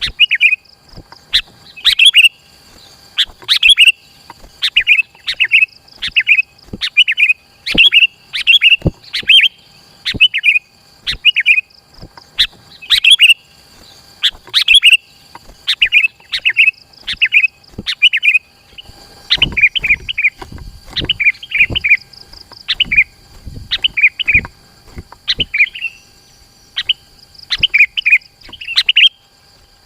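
Sooty-headed bulbul (kutilang) calling and singing in a busy, unbroken run of short, loud chirping phrases, about one or two a second, as used in a lure recording to draw in wild kutilang. A faint steady high whine sits underneath.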